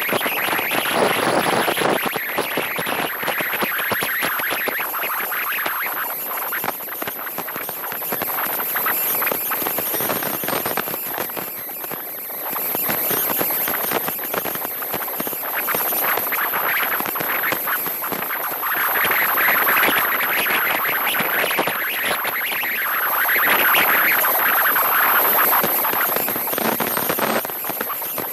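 Rushing wind and road noise from a car driving at speed, with no distinct engine note, swelling louder twice in the second half. A thin, steady high whine runs over it.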